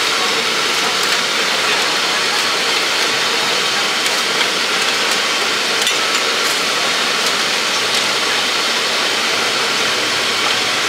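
Steady hiss and hum of a deep-frying food stall, with faint background voices and a few light crackles.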